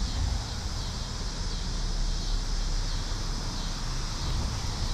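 Steady outdoor background noise: a low rumble with a constant high hiss over it, and no distinct events.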